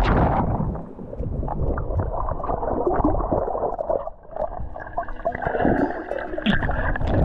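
Muffled underwater gurgling and bubbling around a swimmer, heard from a camera under the water, with air bubbling out of his mouth. A splash is heard right at the start.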